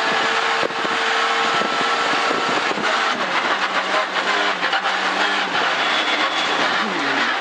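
Opel Corsa B rally car's engine heard from inside the cabin, held at high revs at first, then revs falling and jumping back up as the car brakes and downshifts from fifth through fourth to third. Loose gravel rattles and pings against the underside throughout.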